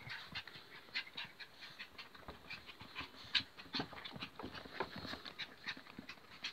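Two small long-haired dogs play-wrestling at close range: a busy, irregular run of short scuffles and quick breaths as they tussle.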